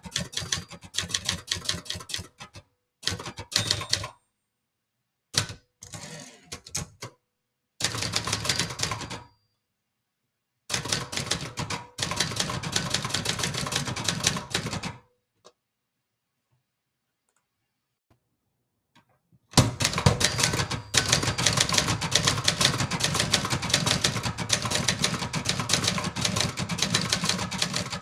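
1960s Brother Charger 11 manual portable typewriter being typed on fast, the typebars clattering against the platen in bursts with short pauses. A long pause comes about halfway through, after which the typing runs on without a break.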